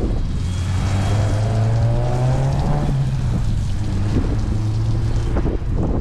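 A motor or engine running steadily with a low hum, its pitch rising slowly in the first few seconds, over wind rumbling on the microphone.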